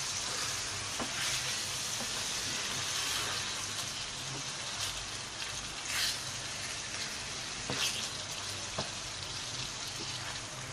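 Keema-stuffed bitter gourds (karela) frying in a wok with a steady sizzle. A spatula turns them, with a few short scrapes and knocks against the pan.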